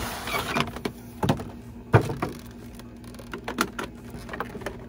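Clear plastic packaging tray being pulled out of a cardboard box, sliding and scraping with rustles and a series of plastic clicks and knocks, the loudest a sharp knock about two seconds in.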